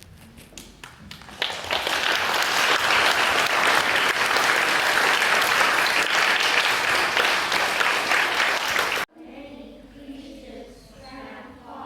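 Audience of schoolchildren applauding: a few scattered claps swell about a second and a half in into steady, dense clapping, which cuts off abruptly near the end, leaving faint voices.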